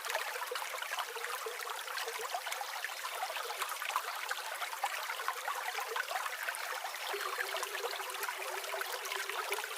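Forest stream sound-effect loop: water trickling and babbling steadily.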